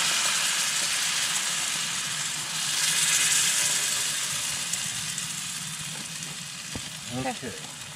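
Hot butter in a cast-iron Dutch oven sizzling as canned peaches and their syrup are poured in over the batter. The sizzle swells about three seconds in, then slowly dies down.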